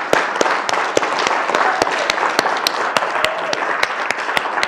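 Audience applauding: many people clapping together in a room, with one clapper close to the microphone standing out, about four sharp claps a second.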